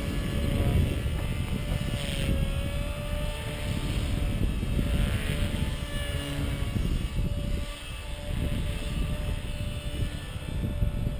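Gaui EP200 small electric RC helicopter in flight: a steady whine from its motor and rotors that bends in pitch as it manoeuvres, over a low rumbling noise.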